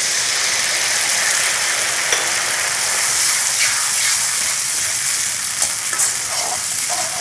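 Tomato purée frying in hot oil with sautéed chopped onions in a kadai: a steady sizzle, stirred with a slotted metal spatula that clicks against the pan a few times.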